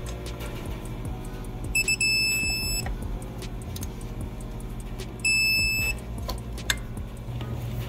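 Two high beeps of about a second each from a digital torque wrench, signalling that it has reached the set torque of 27 ft-lb on the turbo's coolant banjo bolts. Background music plays underneath.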